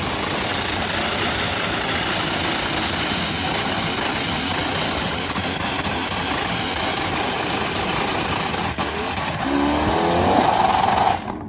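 Supercharged V8 of a Dodge Challenger Hellcat held at high revs in a burnout, with the spinning rear tyre screeching; the tyre is burned through and throwing sparks off the pad. Near the end the revs climb higher and louder, then the sound cuts off abruptly.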